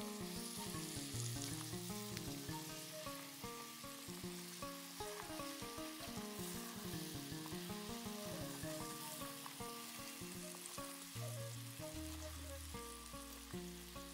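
Whole peeled potatoes sizzling as they fry in oil in an aluminium pot, with a wooden spoon stirring them. Background music with a stepping melody and bass notes plays over it.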